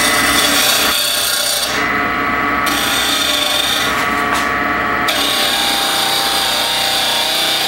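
A gouge cutting a spinning cocobolo block on a wood lathe: a continuous rough hiss of the cut over the lathe's steady hum. The cut eases off for about a second around two seconds in, then resumes.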